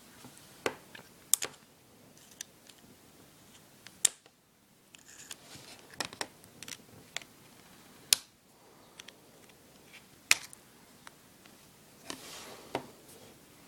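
Irregular small clicks, taps and light scrapes of an iPod's metal and plastic parts and a small screwdriver being handled, with about five sharper clicks spread through.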